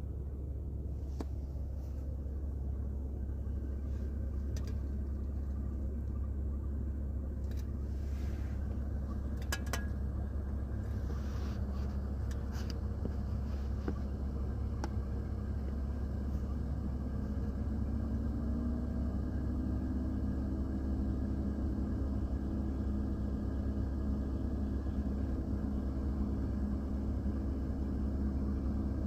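Low steady rumble inside a truck cab, with a few sharp clicks about a third of the way in. After about 17 seconds a set of steady humming tones rises over the rumble.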